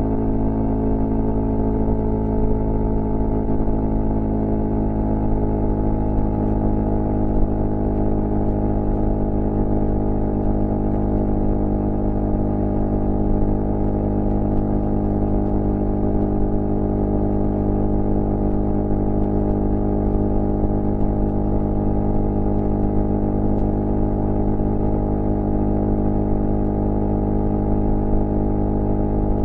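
Suzuki GSF 650 Bandit's inline-four engine idling steadily through a cut-down Beowulf exhaust with no baffle, at a constant engine speed.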